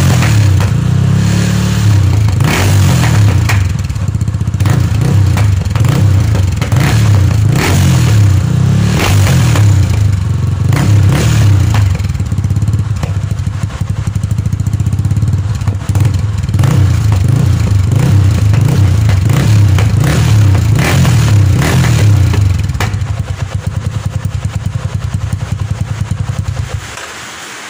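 Yamaha Scorpio Z 225's single-cylinder four-stroke engine running loud through a hollowed-out (bobok) stock muffler. It gives a deep rumble that rises and falls as the throttle is worked, with sharp cracks throughout. Near the end it settles into a choppy, loping idle and then cuts off.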